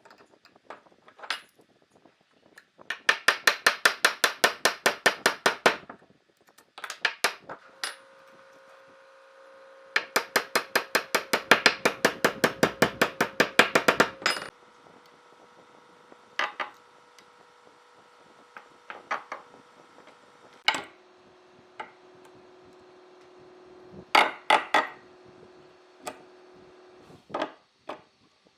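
Rapid hammering in woodworking: two runs of quick, even strikes at about seven a second, each lasting a few seconds, then scattered single knocks with a faint ringing tone underneath.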